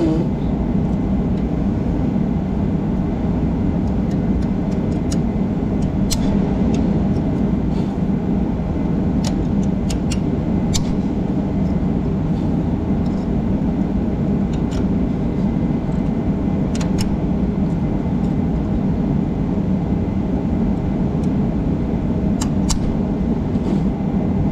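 A steady low drone throughout, with scattered short metallic clicks as a steel pick scrapes in a threaded radiator bolt hole and works a coil of thread insert loose.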